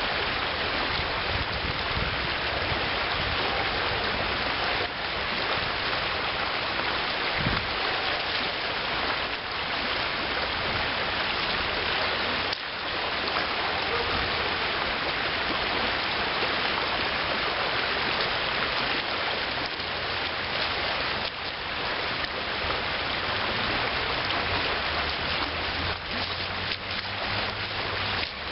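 Shallow river riffle rushing over gravel: a steady, even hiss of flowing water.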